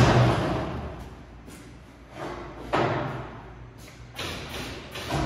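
A slaughterhouse knockbox's gate and boards being locked into place: a loud slam at the start that rings briefly, then a second heavy knock a little over halfway through, with a few lighter knocks and clunks between.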